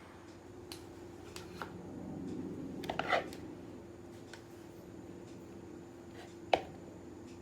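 Light kitchen handling sounds while preparing a cake: a few soft clicks and taps, a short clatter about three seconds in, and one sharp tap about six and a half seconds in, over a faint steady hum.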